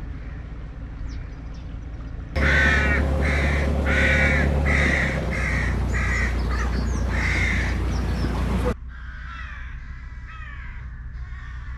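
A crow cawing repeatedly, about eight harsh caws in six seconds, over a steady low hum. Before and after the cawing the sound drops abruptly to quieter stretches with faint bird chirps.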